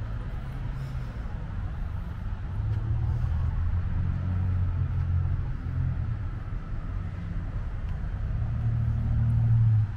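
Road traffic on a nearby street: the low rumble of passing car engines, growing louder from about two and a half seconds in and loudest near the end.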